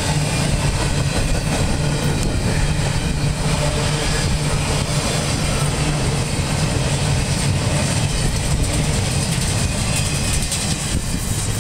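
Freight train of empty double-stack intermodal well cars rolling past, the wheels on the rails making a steady, unbroken rumble with a low hum underneath.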